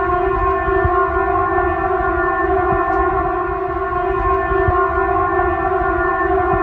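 Civil defense siren sounding one steady, unchanging tone, with a low rumble underneath.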